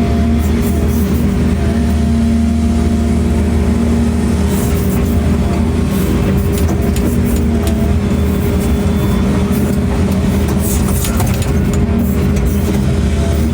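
Steady low engine drone with occasional faint clicks and taps over it.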